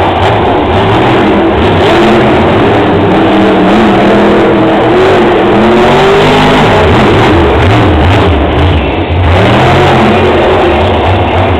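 Monster truck's supercharged V8 revving hard and very loud, its pitch rising and falling again and again as the throttle is worked through jumps and turns.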